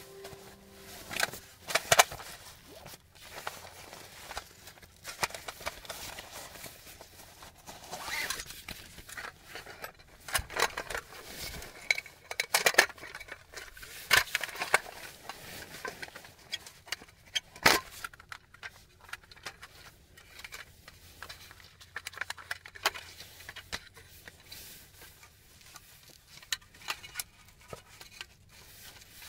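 iClimb aluminium roll-up mini camp table being unrolled and its legs set up: irregular metallic clacks and rattles of the slats, the sharpest about two seconds in and again a little past halfway.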